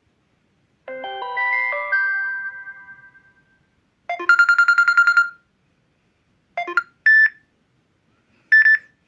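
Samsung Galaxy A6+ phone tones played one after another with silence between. About a second in comes a rising chime arpeggio that rings out over two seconds. About four seconds in a quick pulsing tone lasts just over a second, and near the end come three short beeps.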